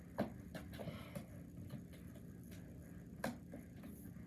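Soft handling sounds from a fidget toy being turned over in the hands: a few short faint clicks and taps over a low steady hum.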